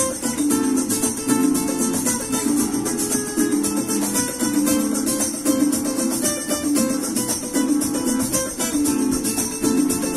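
Steel-string acoustic guitar fingerpicked and strummed in a quick flamenco-style run of notes, over a flamenco backing track.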